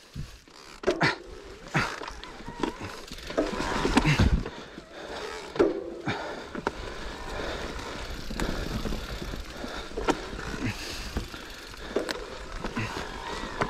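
Electric full-suspension mountain bike rattling and knocking as it rides over a rough forest trail, with irregular sharp clatters from bumps, tyre noise on dirt and leaves, and a low wind rumble on the microphone.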